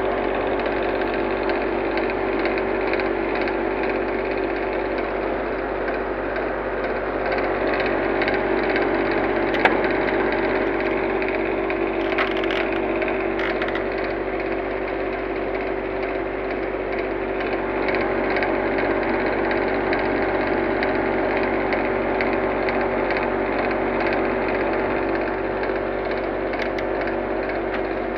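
Blue Star air conditioner running with a steady mechanical noise and a constant hum, with a brief click about ten seconds in; the owner takes the noise for a fault in the unit.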